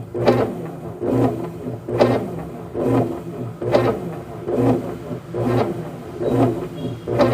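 Brastemp top-loading washing machine agitating in its wash cycle: the motor and agitator surge back and forth in an even rhythm of a little over one stroke per second. The running sounds normal, without the intermittent banging that is the fault being chased.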